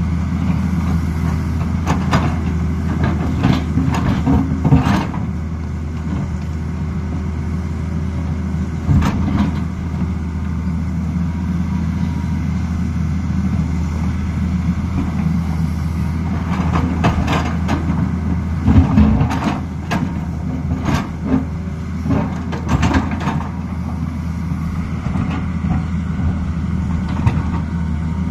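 Tata Hitachi 220 excavator's diesel engine running steadily under working load. Several clusters of knocks and scrapes from the steel bucket digging into rocky soil break through it.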